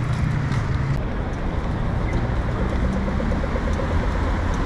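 Steady city street traffic noise from passing cars and motorbikes, with a fast, even ticking for a second or two in the middle.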